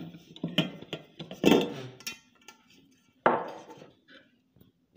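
A metal cake tin knocking and clattering against a ceramic plate as a baked cake is turned out and the tin lifted off. There are several separate knocks, the loudest about a second and a half in and again just after three seconds.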